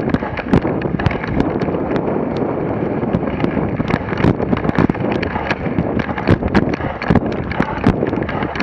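Dog sled running fast on a packed snow trail: steady scraping of the runners over the snow, with frequent sharp knocks and rattles from the sled and wind on the microphone.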